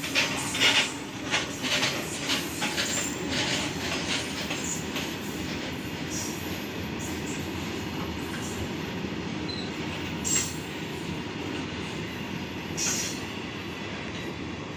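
Goods train wagons rolling along the track: rapid clicking of wheels over rail joints in the first second or so, then a steady rumble with a few brief high squeaks from the wheels.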